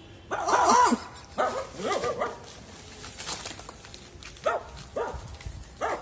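Dog-style barking: a loud run of barks in the first two seconds, then short single barks spaced roughly half a second apart after the middle.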